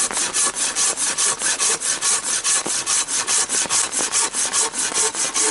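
Silky BigBoy 2000 folding pruning saw cutting through a thin log in rapid, even push-pull strokes, about four a second.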